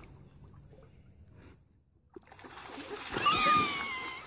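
Dog splashing through shallow water as it lunges forward; the splashing starts faint and builds up about two seconds in. Over it, near the end, comes a high, drawn-out cry that slowly falls in pitch.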